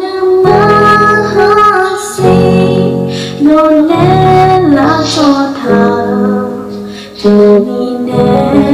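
Loud song with a woman singing a melody over instrumental backing, with held and sliding notes.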